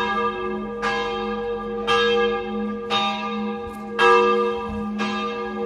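Church bell tolling, struck about once a second, six strokes in all, with a steady hum ringing on between strokes.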